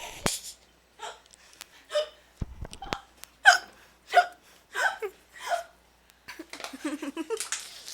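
A person hiccupping over and over in a persistent hiccup attack: short, sharp vocal hiccups about every half second to a second, followed near the end by a quick run of breathy vocal pulses.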